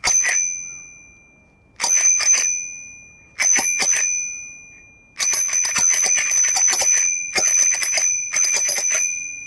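Bicycle bell rung repeatedly. Three short double rings come about a second and a half apart, each ringing out afterwards, followed by three runs of rapid continuous ringing over the second half.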